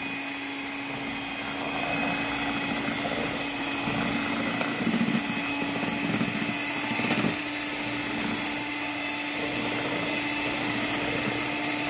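Electric hand mixer running at a steady speed, its twin beaters whipping mashed bananas and raw eggs into a batter.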